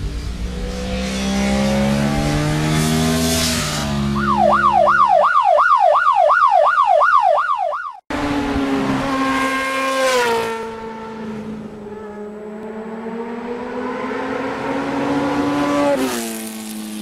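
Vehicle engine sounds. First an engine's pitch rises. Then a fast warbling, siren-like tone sweeps up and down for about four seconds. After an abrupt cut, an engine runs with its pitch dipping and then rising again.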